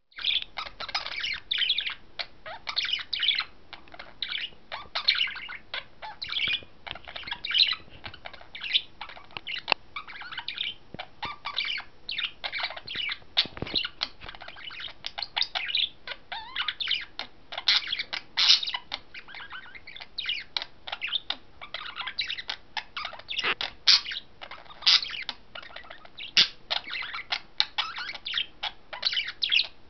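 Budgerigar warbling: a continuous, rapid chatter of short chirps, squeaks and whistles that keeps varying in pitch, without real pauses.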